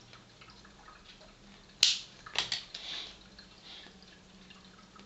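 Tobacco pipe being puffed while lit with a lighter: quiet draws and small lip pops at the stem, with one sharp click about two seconds in, then a few quick puffs.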